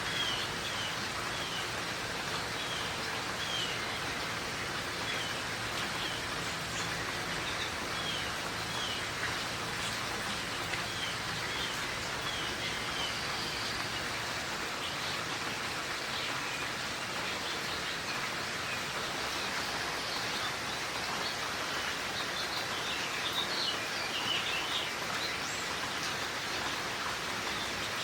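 Steady rain shower falling, with a small bird giving short high chirps over and over, about one or two a second through the first half and more scattered chirping later.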